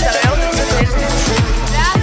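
Background music with a heavy, steady beat about twice a second over a sustained bass line, with sliding synth-like melody lines above.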